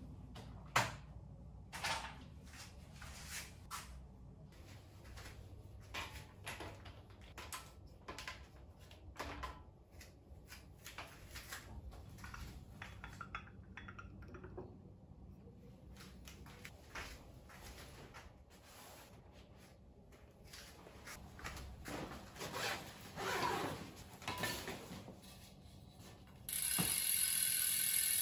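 Scattered light clicks and knocks of bicycle parts and tools being handled, then, about 26 seconds in, the loud, fast, steady ticking buzz of a carbon Campagnolo Bora WTO wheel's freehub ratchet as the wheel is spun.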